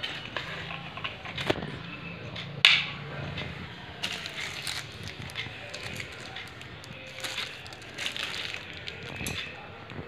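Sharp clicks and knocks at irregular intervals, one much louder snap about three seconds in, over a faint low hum.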